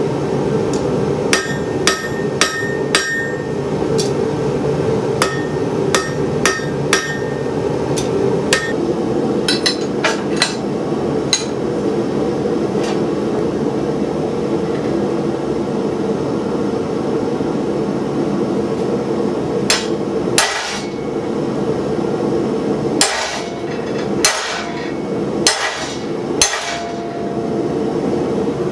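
Hand hammer striking hot steel bar stock on an anvil, forging down the corners of the poker. The blows come irregularly in runs, some with a short metallic ring, over the steady rush of a running gas forge.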